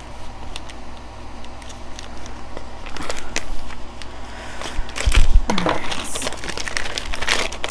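Plastic-wrapped packs of party treat bags being handled, the packaging crinkling and rustling in short crackles, with a thud about five seconds in that is the loudest sound.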